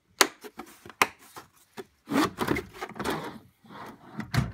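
Red plastic tool case handled in a tool chest drawer: the lid shuts with two sharp clicks, then it scrapes and rubs against the drawer. A heavier knock near the end as the drawer is moved.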